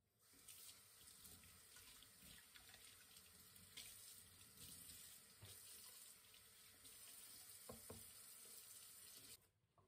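Kitchen faucet running faintly into a stainless steel sink while a sponge is wetted under the stream, with two light knocks about three-quarters of the way through. The water is turned off shortly before the end.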